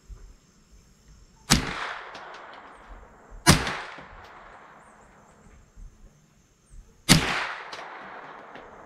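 Three unsuppressed shots from a Smith & Wesson M&P15-22 .22 LR rifle with its standard flash hider, firing standard supersonic Remington rounds. Each is a sharp crack followed by a long fading echo. The first two come about two seconds apart and the third about three and a half seconds later, with a few faint clicks between them.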